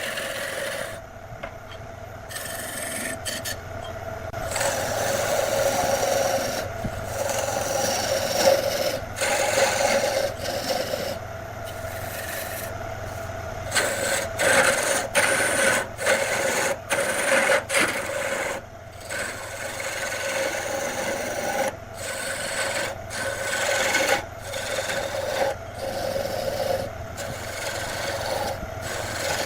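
Wood being worked on a spinning woodturning lathe: a tool held against the turning wood gives a continuous rasping scrape over a steady low motor hum. The scrape swells and fades, and it breaks off abruptly many times throughout.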